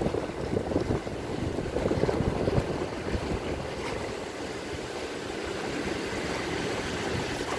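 Wind buffeting the microphone over the wash of sea water around a small boat, with a few brief bumps in the first seconds.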